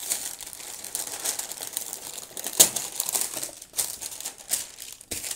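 Brown kraft wrapping paper rustling and crinkling as hands break its sticker seal and fold it open, in a run of dry crackles with the loudest about two and a half seconds in.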